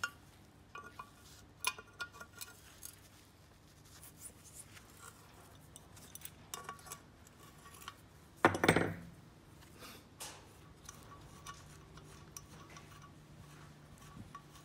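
Light clinks and taps of small metal parts and tools being handled, scattered irregularly, with one louder clatter of about half a second just past the middle.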